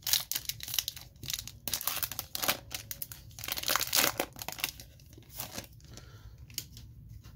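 Foil wrapper of a 2020 Panini Playbook football card pack being torn open at its crimped seal and crinkled as the cards are slid out. The crinkling is dense for the first four seconds or so, then thins to a few scattered crackles.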